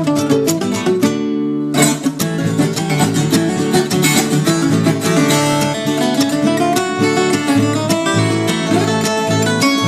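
Viola caipira, the Brazilian ten-string guitar, being played: quick plucked notes and strummed chords. About a second in there is a brief pause in which the chord rings on before the picking resumes.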